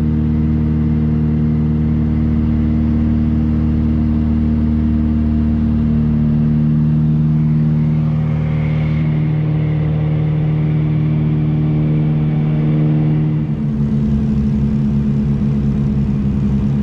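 Twin Lycoming piston engines and propellers of a Britten-Norman Islander droning steadily, heard from inside the cabin. About two-thirds of the way in the engine tone shifts, and a rhythmic throb comes and goes as the two engines beat against each other.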